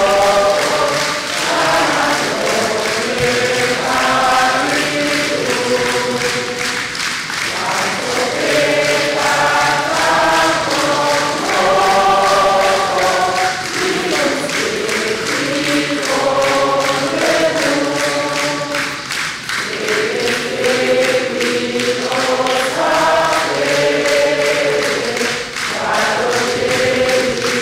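A crowd of mixed voices singing a hymn together in unison, with hands clapping along to the beat.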